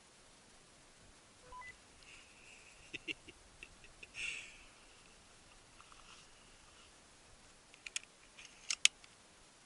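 Quiet background broken by scattered faint clicks and a short chirp-like burst, then a quick cluster of sharp, louder clicks near the end.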